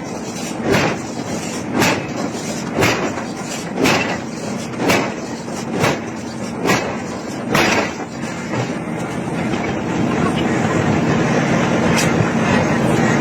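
Heavy hammer blows on iron at a forge, about one a second, eight strikes in a row. From about ten seconds in, a louder steady mechanical noise takes over.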